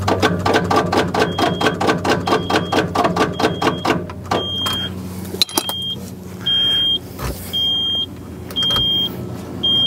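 Kobelco excavator's diesel engine turning over on the starter with a slow, even pulse of about four strokes a second but not firing; the cranking stops about four seconds in. After that a high warning beep sounds about once a second.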